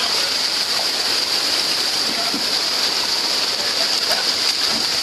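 Steady rush of flowing water, a continuous hiss of falling and running water.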